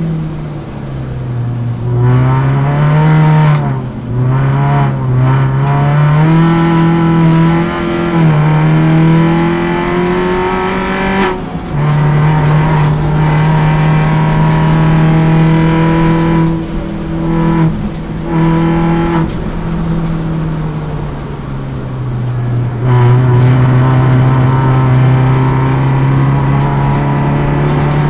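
Alfa Romeo Twin Spark four-cylinder race car engine heard on board under racing load. Its note climbs and drops back again and again with gear changes and lifts for corners, with several brief breaks.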